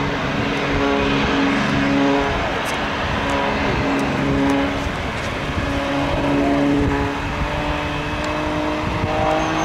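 Aerobatic propeller plane's engine overhead, a steady drone that shifts up and down in pitch every second or so as the plane throttles and turns through its manoeuvres.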